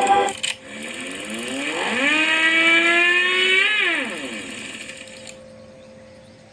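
Ola S1 Pro electric scooter's artificial 'Vintage' mood sound played from its speaker: a synthesized engine rev that rises for about a second, holds, then falls away around four seconds in. Before it, a shorter tone cuts off about half a second in.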